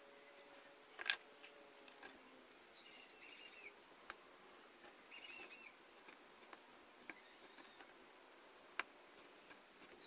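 Quiet, with a few sharp clicks and light scraping from a craft cutter working the edge of thin white cardboard; the loudest click comes about a second in, others near the middle and near the end.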